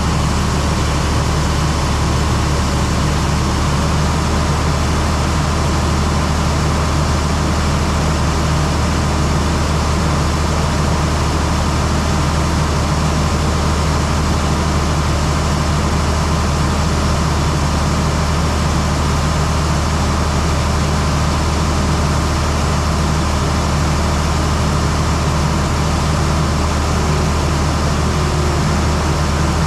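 Heavy farm machinery engine running steadily at a constant speed, a low, even drone with a broad mechanical noise over it and no change in pitch.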